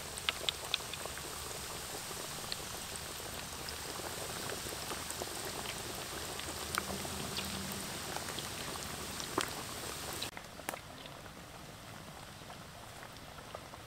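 Batter-coated chicken wings deep-frying in a wok of hot oil: a dense sizzle with many scattered crackles and pops. The sizzle drops to a quieter level about ten seconds in.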